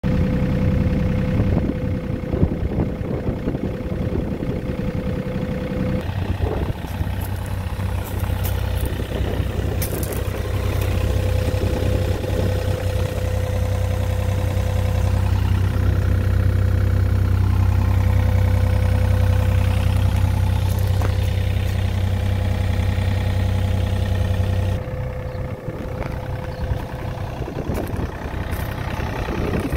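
2009 John Deere 35D mini excavator's diesel engine running steadily at idle, with a constant whine over the low hum. The hum changes about six seconds in and eases slightly near the end.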